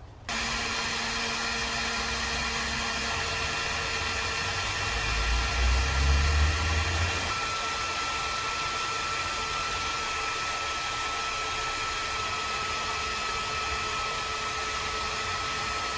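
Cordless heat gun switching on just after the start and blowing steadily, a hiss of air with a faint steady hum, used to shrink heat-shrink tubing over crimped wire connectors. A low rumble swells briefly about five to seven seconds in.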